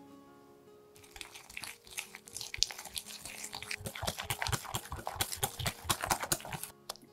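A wire balloon whisk beating thick butter cream (softened butter with powdered sugar and condensed milk) in a glass bowl, a fast run of wet, squelching strokes at roughly four a second. It starts about a second in and stops just before the end.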